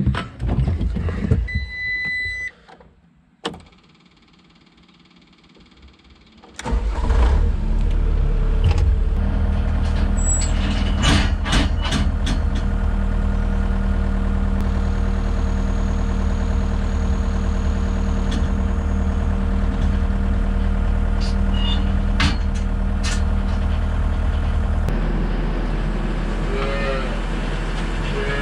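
Case skid steer's diesel engine starting about six and a half seconds in and then running steadily, after knocks and a short beep from the cab. Near the end a calf moos.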